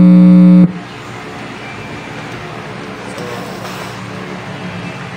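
Keyboard-style music played through the amplifier under test into a speaker, one loud held chord that cuts off abruptly under a second in, followed by a steady low background hiss and hum.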